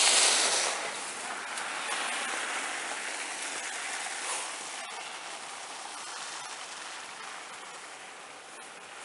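Tyre hiss of a car passing on a wet, slushy road: loudest in the first second, then slowly fading as it moves away.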